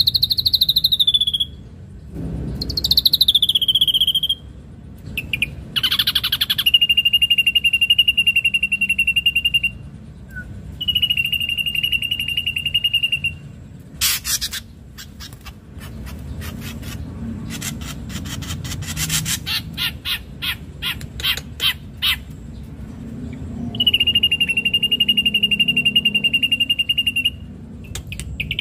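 Ashy drongo singing: short falling whistles, then long level whistles held about three seconds each at the same pitch, with a run of rapid clicking notes in the middle.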